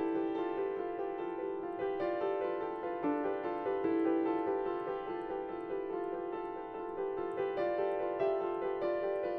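Background piano music: a steady flow of notes.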